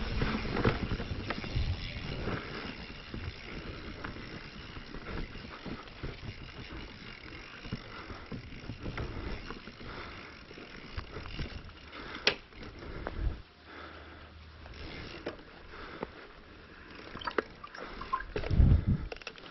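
Mountain bike on a rough forest trail, its tyres rolling over dirt, roots and stones, with frequent small knocks and rattles from the bike. A louder low rumble comes near the end.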